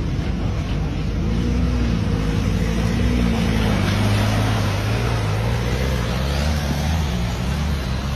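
Five-cylinder engine of an off-road vehicle rumbling as it works through mud, its pitch rising and falling a couple of times in the first half, then holding steadier.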